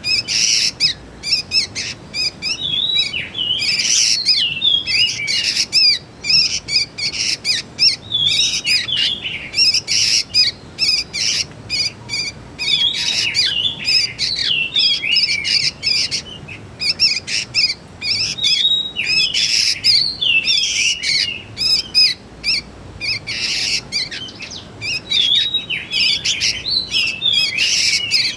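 Young sooty-headed bulbuls (kutilang) calling: quick, high chirps and twitters tumbling over one another almost without pause, with brief breaks every few seconds.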